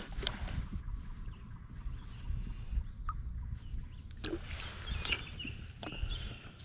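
Light water splashes as a hand lowers a bluegill into a shallow creek and lets it go, with a few sharp splashes about four to five seconds in. A steady high drone of insects runs underneath.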